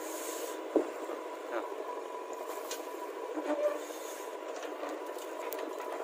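Diesel engine of a JCB 3DX backhoe loader running steadily while its backhoe arm digs, with a single knock under a second in.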